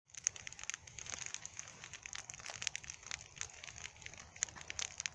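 Wood campfire crackling, with many irregular sharp snaps and pops.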